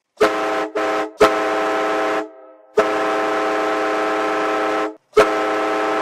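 Hockey goal horn, a many-toned air horn sounding a chord: two short blasts, a longer one of about a second, a long blast of about two seconds, then another blast starting about five seconds in.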